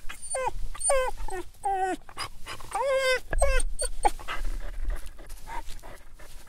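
Dog whining: a string of short, high whines, many of them dropping in pitch at the end, with one longer whine about three seconds in. They come thick in the first four seconds and then turn fainter.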